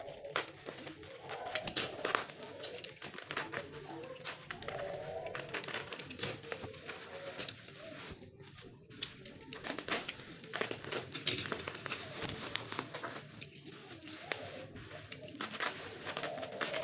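Plastic and paper packaging crinkling and tearing in irregular bursts as a book parcel is unwrapped by hand.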